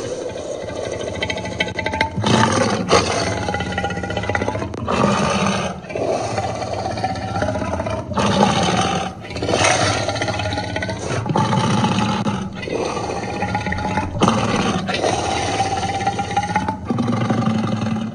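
Designed dragon roars and snarls, layered from lion, tiger and dinosaur roars: a loud string of about a dozen roars, each one to two seconds long, following one after another with only brief breaks.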